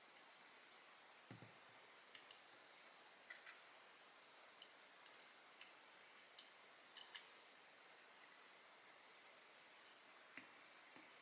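Faint, scattered light clicks and taps of small handling at a workbench, most of them clustered about five to seven seconds in.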